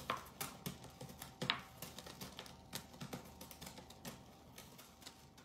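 Light clicks and taps of a metal fork against a frying pan, two of them louder about a second and a half apart near the start. Fainter irregular ticking from the simmering shakshuka runs between them.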